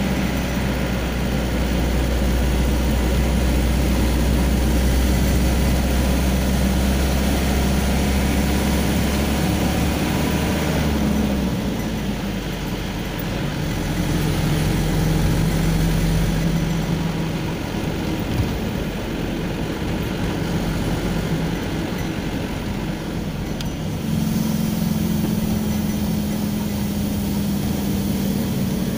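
Vehicle engine running with road noise, heard from inside the cab while driving; the engine note shifts several times, its deep hum dropping away about eleven seconds in.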